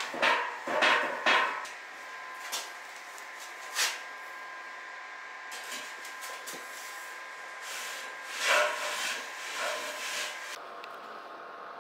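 Steel parts knocking and clanking as they are handled on a welded steel frame: a quick run of knocks at the start, single ones a little later, and another cluster near the end. A faint steady whine sounds underneath.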